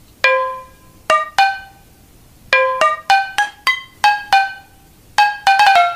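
Background music: a melody of single pitched notes, each struck and ringing out before fading. The notes come sparsely at first and quicken into a rapid run near the end.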